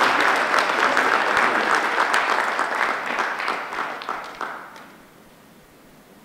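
Audience applause, a dense patter of many hands clapping that thins out and dies away about five seconds in.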